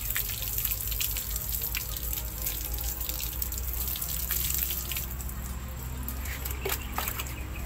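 Water poured from a plastic dipper splashing over a soapy plastic kayak hull to rinse it, thinning to a few drips about five seconds in.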